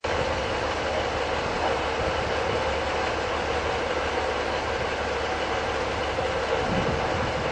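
Class 153 diesel multiple unit's Cummins NT855 diesel engine idling steadily while the unit stands still.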